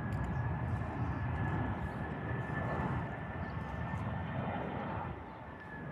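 Embraer C-390 Millennium's twin IAE V2500 turbofan engines in flight: a steady jet rush with a thin high whine, easing slightly near the end.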